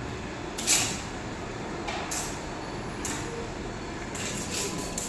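CNC laser cutting machine running over a steady background noise, with several short hissing bursts.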